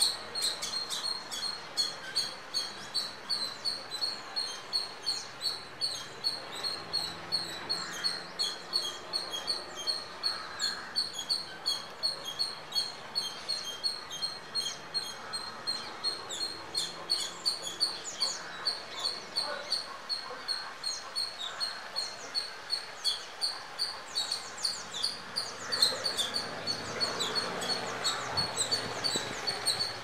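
Indian palm squirrel giving its repeated high-pitched chirping squeak, a rapid, steady series of short calls at about two to three a second.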